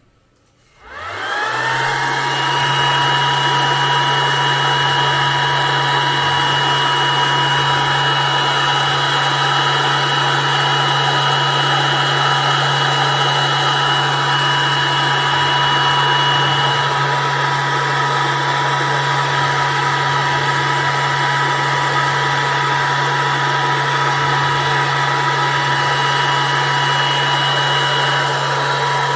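Electric blower motor spinning up about a second in, then running steadily with a low hum and a few steady whining tones, as a diode laser engraver works on a job.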